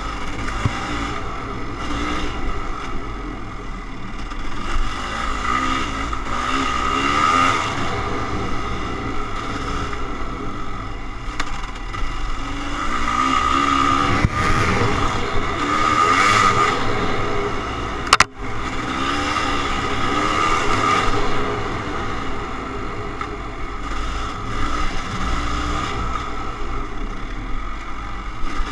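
Kawasaki KX500's two-stroke single-cylinder engine running as the dirt bike is ridden, its revs rising and falling. There is one sharp click about two-thirds of the way through.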